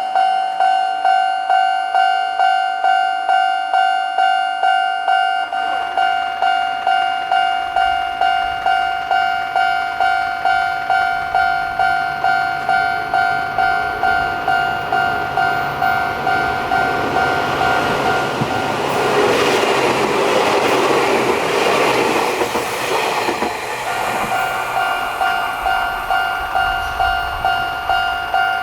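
Japanese level-crossing alarm ringing its rapid, even electronic clang. About two-thirds of the way through, a Chichibu Railway electric train passes: its rumble and wheel clatter swell, drown the bell for several seconds, then fade.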